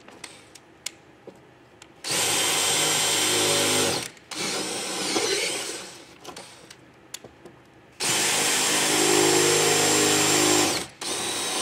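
Cordless drill boring a pilot hole through a fiberglass boat deck's gel coat. It runs in several bursts of two to three seconds at a steady pitch, stopping between them, with small clicks in the pauses.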